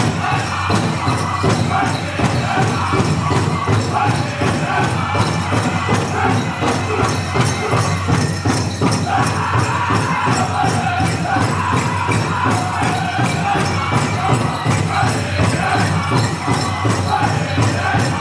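Powwow drum group singing a grass dance song: high-pitched, wavering singing over a steady, even beat on the big drum.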